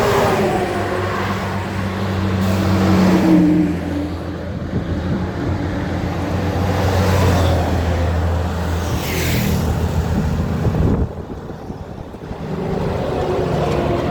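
Heavy diesel truck engine running with a steady low drone as the truck goes by, with a short hiss about nine seconds in. The engine sound drops off sharply about eleven seconds in, and another vehicle approaches near the end.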